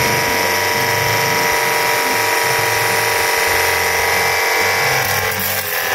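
24V cordless portable pressure washer's electric pump motor running with a steady whine, which wavers briefly near the end.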